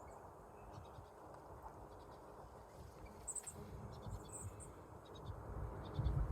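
Small songbirds giving faint, very high, short chirps in scattered clusters, over a low rumble of wind on the microphone.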